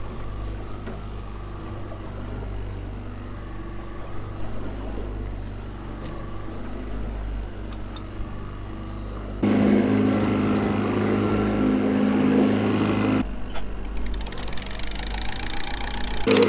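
Boat's outboard motor running steadily at trolling speed, a low rumble with wind and water noise. About two-thirds of the way in it turns suddenly louder with a steady engine hum, drops back briefly, then returns near the end.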